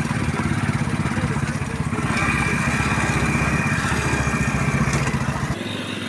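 Motorcycle engine running at low speed, a steady rapid firing beat. A thin whine joins about two seconds in, and the engine sound changes abruptly shortly before the end.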